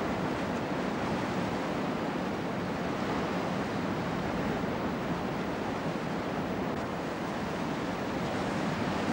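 Ocean surf: a steady rush of waves breaking, with some wind mixed in.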